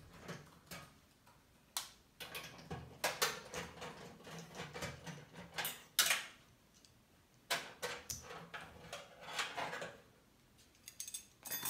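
Irregular clicks, taps and short scrapes of small metal parts and screws being handled while working on a small PC case.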